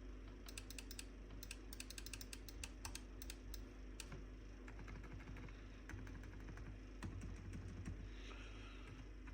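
Typing on a Mchose K99 mechanical keyboard with Outemu Silent Peach V2 silent switches: soft, quiet keystrokes, a fast burst of them through the first few seconds, then slower, scattered presses.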